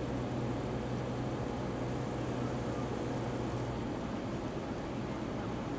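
Light single-engine propeller airplane's engine and propeller droning steadily, heard inside the cockpit as a constant low hum over an even hiss.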